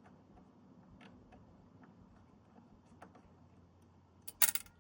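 Faint scattered clicks of a screwdriver working a small screw out of a Teletype Model 35 typing unit's contactor assembly, then a short, louder metallic clatter near the end as parts come free or are set down.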